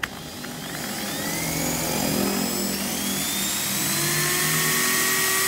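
Electric drill drilling into a brass lock cylinder: it starts with a click, its whine climbs in pitch over the first couple of seconds, then runs at a steady pitch with a hiss.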